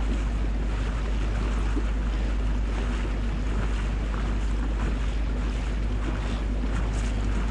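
Boat underway: a steady engine drone mixed with water rushing past the hull and wind buffeting the microphone.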